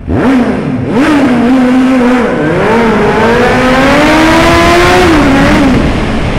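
Suzuki GSR750's inline-four engine through an S P Engineering Tri-oval aftermarket exhaust, revving loud inside a tunnel: two quick blips, then a longer pull that climbs and drops away near the end.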